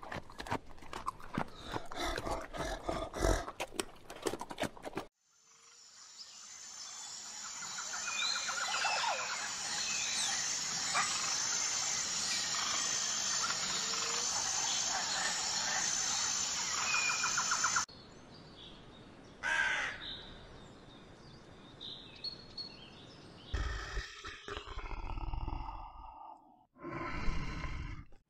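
A giant panda crunching bamboo: a fast run of cracks and snaps for about five seconds. Then forest sounds take over, with birds chirping over a steady high-pitched drone, until about eighteen seconds in. After that it is quieter, with a few scattered low animal sounds near the end.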